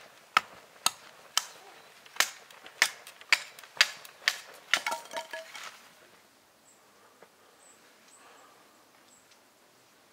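Coffee dripping from a drip bag into a metal mug: sharp drips about twice a second, thinning out and stopping about six seconds in. After that it is quiet, with a few faint high chirps.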